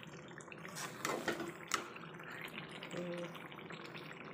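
Thick chicken curry bubbling and sizzling in a kadai, cooked down until the oil has separated from the masala. A few sharp clicks come about a second in.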